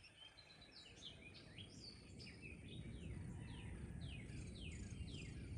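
A bird calling a quick series of short down-slurred chirps, about two or three a second, over a low steady background rumble.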